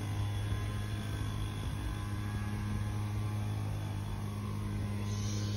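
A steady low mechanical hum, like an engine running, made up of several steady tones.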